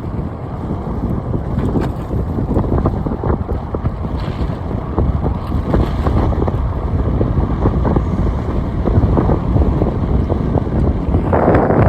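Heavy wind buffeting the microphone while riding: a dense, low rumbling noise with scattered crackles and knocks, which grows louder and brighter near the end.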